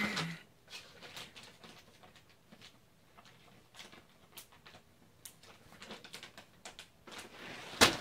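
A tabby cat pawing and batting at a small object on carpet: a scattered run of light scratches and taps, with one sharp, louder knock near the end.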